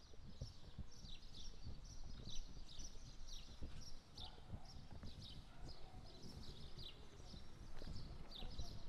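Small birds chirping continuously: many short, high, quickly falling calls, several a second, over low uneven knocks.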